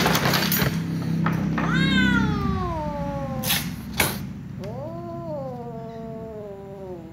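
Cats in a confrontation: a sudden hiss over a low growl, then a long yowl falling in pitch, two short sharp spits, and a second drawn-out yowl that rises and then slowly sinks. These are warning and threat sounds as one cat swipes at the other.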